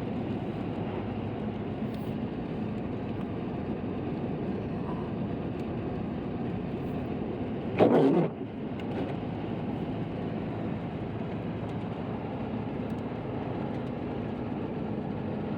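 Steady road noise of a car driving on a wet, slick road after rain. About halfway through there is one short, loud whoosh lasting about half a second.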